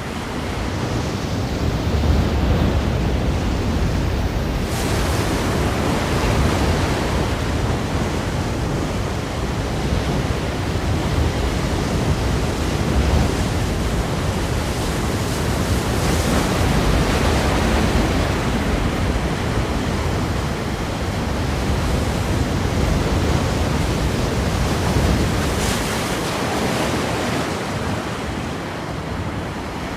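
Ocean surf: waves breaking in a continuous wash of noise, with stronger breaks surging about 5, 16 and 26 seconds in.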